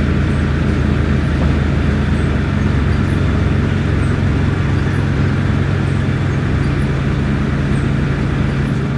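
Diesel engine of heavy demolition plant running steadily, its low note changing a little about two and a half seconds in.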